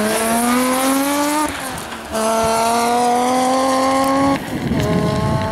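Rally car engine at full throttle. The revs climb, break off about one and a half seconds in and come back at a lower pitch, like an upshift, then hold a steady high note. The engine lets off about four seconds in, followed by a rougher, noisier stretch near the end.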